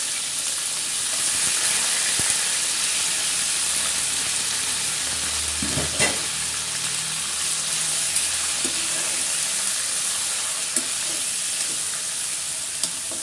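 Raw mutton pieces sizzling as they fry in hot oil tempered with cumin seeds in a frying pan. A steady hiss, with occasional clicks of the metal spoon against the pan as the meat is stirred.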